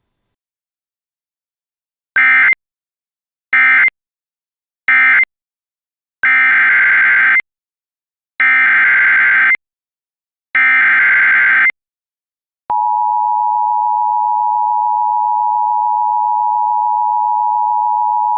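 Emergency Alert System data tones: three short buzzy bursts, the end-of-message code closing one alert, then three longer bursts of the SAME header opening the next. About 13 seconds in, the steady two-tone EAS attention signal starts and holds.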